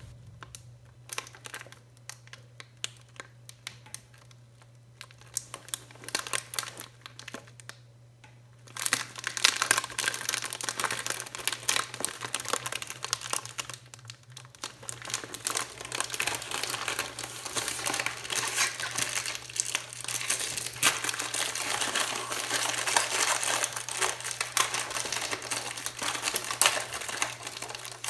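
Plastic film wrapper of an Oreo cookie packet crinkling in gloved hands, with light scattered handling at first. About nine seconds in it becomes continuous, louder crinkling as the packet is pulled open.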